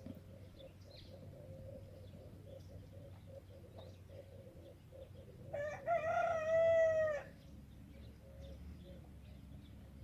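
A rooster crowing once, a single drawn-out call of about a second and a half just past the middle, ending in a falling note.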